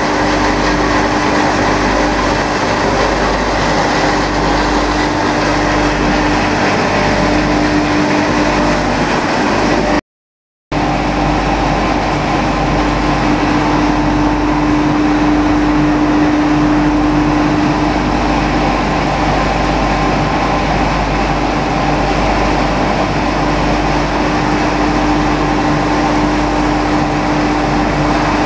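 Machinery of a wood sawdust drying and pelletizing line running: loud, continuous mechanical noise with a steady hum. The sound cuts out for under a second about ten seconds in.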